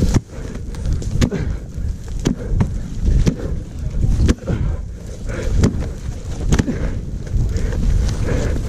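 Wind buffeting a head-mounted camera's microphone in a low rumble, over irregular knocks and footfalls, about two to three a second, as the wearer moves on foot through dry grass.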